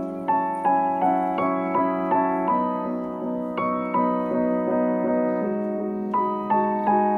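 Background piano music: a gentle melody of evenly spaced notes, about three a second, over held chords.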